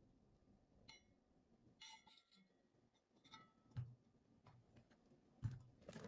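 Stainless steel oil cruet and its pour spout clinking as they are handled: three light metallic clinks, each with a short ring, about one, two and three seconds in. Two louder dull knocks follow, near the middle and near the end.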